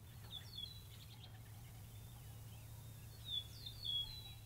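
Small birds chirping faintly in short, quick falling notes, in a run near the start and another near the end, over a faint steady low hum.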